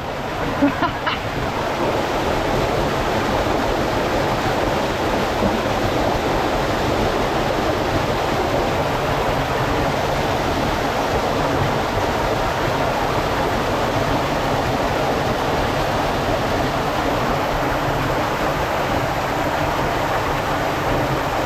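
Waterfall close by, water pouring and splashing in a steady, loud rush.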